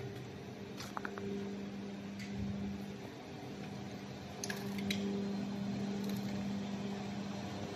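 A steady low mechanical hum, a little louder about halfway through, with a few faint clicks around one second and again around five seconds in.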